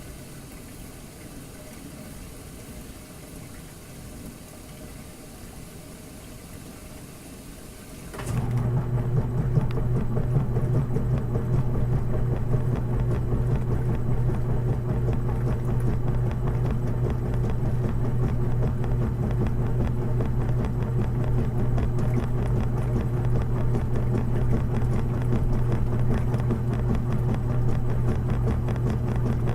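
Washing machine: a quiet hiss, then about eight seconds in its motor starts and runs on with a loud, steady hum.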